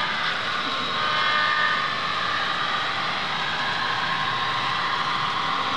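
Model train running on the layout: a steady rushing noise, with a few faint held high tones in the first two seconds.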